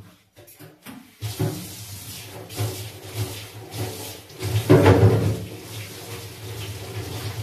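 Water running steadily, as from a tap into a sink, over a low hum; it grows louder about five seconds in.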